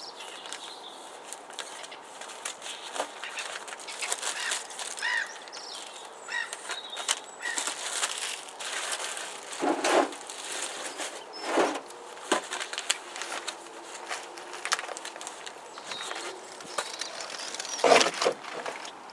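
Paper seed packets being shuffled and handled, with crinkling of a plastic wrapper and scattered clicks. A few louder knocks come through, the loudest near the end.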